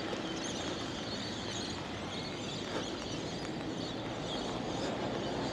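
Wind and monsoon rain making a steady hiss.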